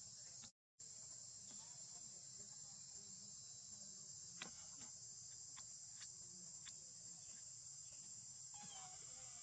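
Faint, steady high-pitched drone of insects, broken by a brief total dropout about half a second in. A few faint clicks follow about halfway through, and a short wavering chirp comes near the end.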